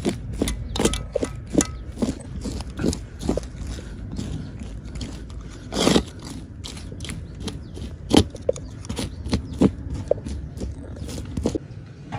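Wooden spatula scraping and knocking against a metal pan as cooked white rice is scooped and broken up, in irregular strokes. The longest and loudest scrape comes about six seconds in, with another sharp knock a couple of seconds later.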